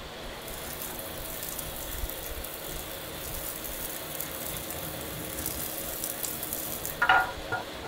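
Wood fire crackling and hissing under a steel barrel oven, with many small snaps. Near the end comes a loud ringing metal clank, followed by a smaller one.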